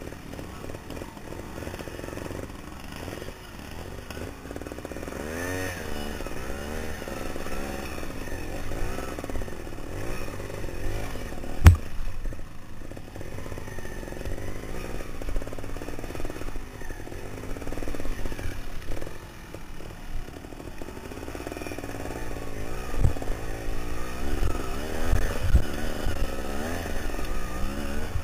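Trials motorcycle engine revving up and down repeatedly while riding over rocky ground, with one sharp knock about twelve seconds in and a few smaller knocks later.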